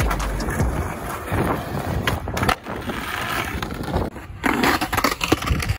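Skateboard wheels rolling on rough asphalt, with several sharp clacks of the board hitting the ground.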